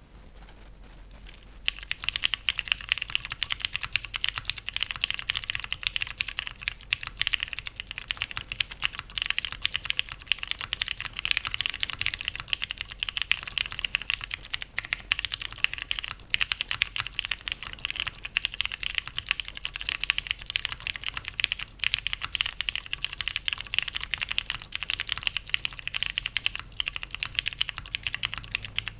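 Continuous fast typing on a custom Daji Ocho Cuatro mechanical keyboard: lubed and filmed Cherry MX Brown switches in a polycarbonate plate, GMK keycaps, no foam dampening. It starts about two seconds in as a dense, steady stream of keystrokes.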